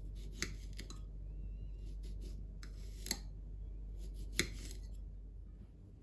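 Knife slicing a cucumber and a tomato on a ceramic plate, the blade clicking sharply against the plate three times, with a few softer taps in between.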